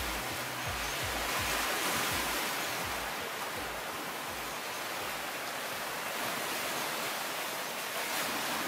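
Ocean surf washing onto the beach: a steady rushing hiss that swells about two seconds in, with low thumps in the first few seconds.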